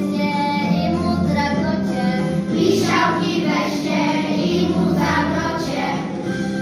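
A class of young children singing a Polish Christmas carol together in unison, over an instrumental accompaniment with a steady bass line.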